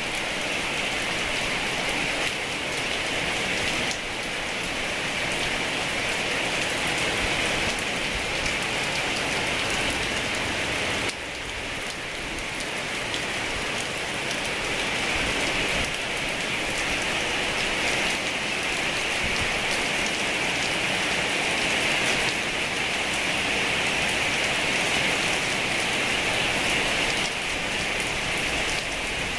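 Heavy rain falling steadily, an even hiss of drops that dips briefly about eleven seconds in.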